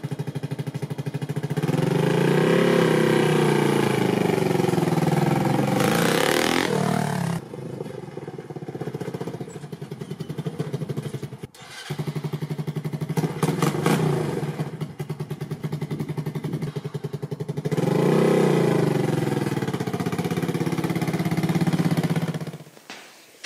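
A 150cc single-cylinder five-speed motorcycle engine on a go-kart, running and revving up twice as the throttle opens, with quieter off-throttle stretches between the two. It cuts off near the end.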